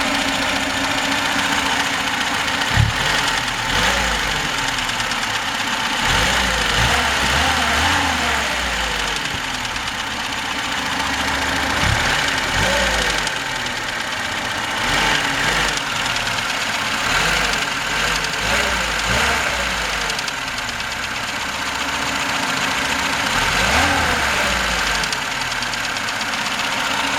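VAZ-21063 four-cylinder engine idling and repeatedly blipped up in revs and back down, with the knock inside the engine that is the fault being shown.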